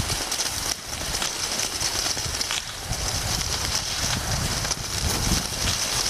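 Skis gliding over snow with a steady hiss, while wind rumbles on the microphone in uneven gusts.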